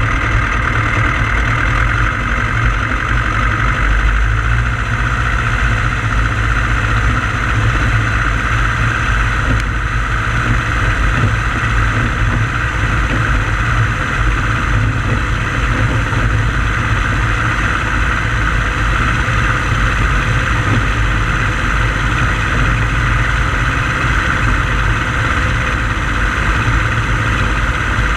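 Pou-du-Ciel (Flying Flea) light aircraft's engine and propeller running steadily at an even pitch, picked up by a camera mounted on the aircraft's nose.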